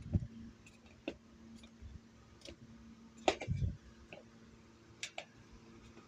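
Irregular sharp clicks and light knocks, about seven in all, a few with a duller thump. The loudest falls about three seconds in.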